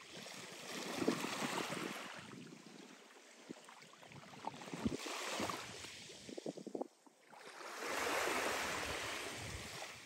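Small waves of a calm sea lapping onto a shingle beach of fine pebbles and shell grit: three soft washes that swell and fade, about a second in, around five seconds and around eight seconds. Between them comes a brief crackle of the shingle as the water draws back.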